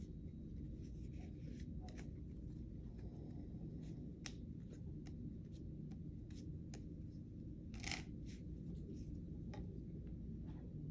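Playing cards being handled and dealt onto a tabletop: faint scattered flicks and snaps, the sharpest about eight seconds in, over a steady low background hum.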